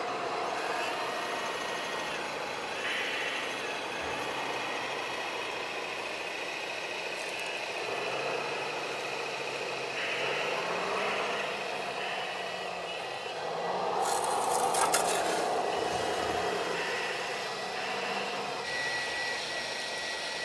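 Radio-controlled model wheel loader and dump truck at work: the whine of small electric motors and hydraulics, rising and falling in pitch, over rattling and scraping of dirt and gravel. It grows louder and harsher for a couple of seconds about two-thirds of the way through.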